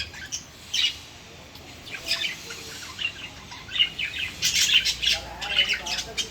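Lovebirds chirping with short, sharp high calls, sparse at first and coming thick and fast in the second half.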